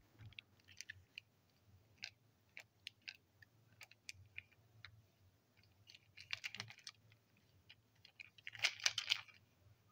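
Faint, scattered clicks and rattles of a model railway truck being handled in the fingers, with two louder runs of rattling clicks, about six and a half and nine seconds in.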